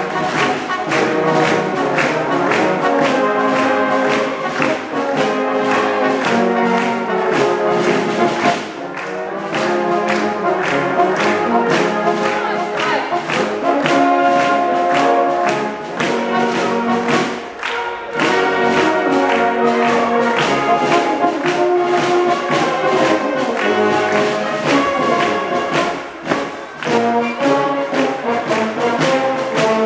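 Brass-led music playing loudly over a steady beat, with a few brief dips in volume.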